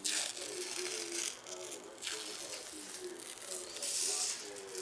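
Crinkly, crackling rustle of a dried tea tree peel-off face mask being pulled away from the skin, in several short bursts: a longer one at the start, a brief one about two seconds in, and another about four seconds in.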